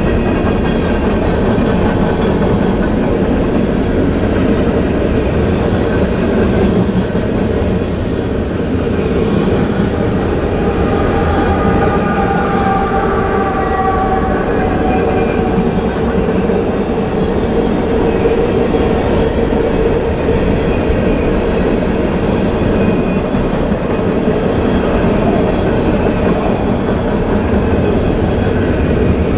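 Freight cars of a CSX train rolling past: a steady rumble and clatter of steel wheels on rail. A faint wavering wheel squeal comes in from about eleven to fifteen seconds in.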